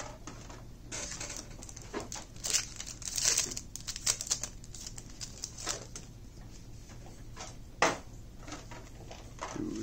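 Foil trading-card booster pack crinkling and tearing open, a dense irregular crackle that peaks in the first half. After that come sparser light rustles and clicks of cards being handled, with one sharp snap about eight seconds in.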